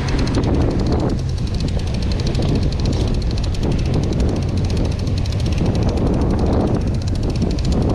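A boat's engine runs steadily under way, with wind buffeting the microphone.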